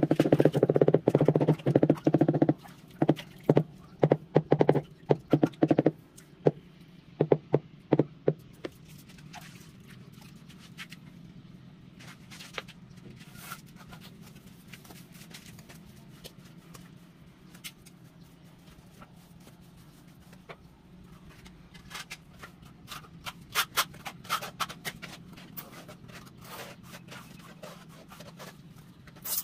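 Rubber mallet tapping a freshly laid floor tile down into its mortar bed: a quick run of dull knocks, then slower single knocks that stop about eight seconds in. Later, a few seconds of sharper clicks and scrapes as a trowel works the mortar against the tile edges.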